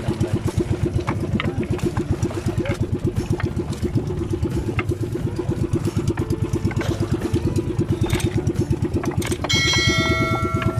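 Outrigger fishing boat's engine running slowly with a rapid, even thudding. About nine seconds in, a short bell-like chime rings over it.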